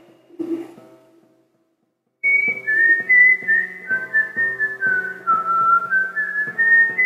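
A short breathy noise into the microphone about half a second in, a moment of silence, then the karaoke backing track's instrumental break. From about two seconds in, a whistled melody steps down and back up over a steady accompaniment with regular plucked notes.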